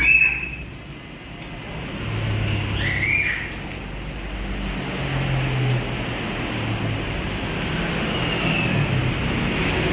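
Road traffic passing, with a low engine hum that swells and fades. There are a couple of short high chirps, one at the start and one about three seconds in.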